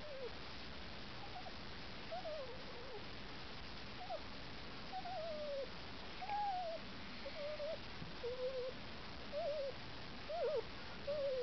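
Young puppy whimpering: a dozen or so short, high cries, most of them sliding down in pitch, spaced about a second apart.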